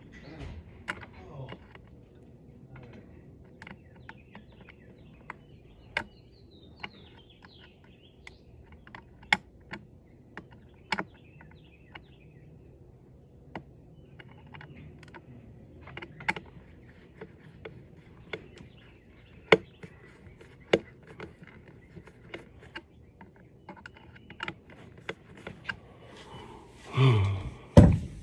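Irregular sharp clicks and taps of hands working on a doorbell unit and its small fittings during installation, with a louder handling thump near the end. Faint bird chirps sound in the background.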